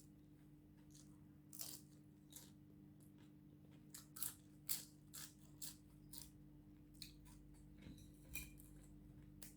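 Close-up crunching and chewing of crispy rugag Arabic bread: a string of short, sharp crunches, irregularly spaced, the loudest about five seconds in. A faint steady hum runs underneath.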